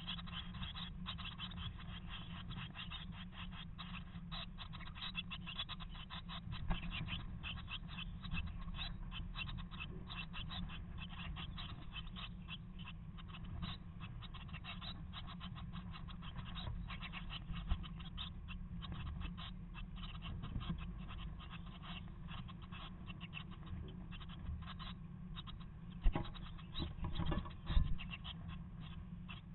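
Eurasian blue tit and its nestlings scratching and rustling on the moss-and-feather nest inside a wooden nest box: a dense, unbroken run of small scratchy clicks over a steady low hum. A few louder knocks come near the end.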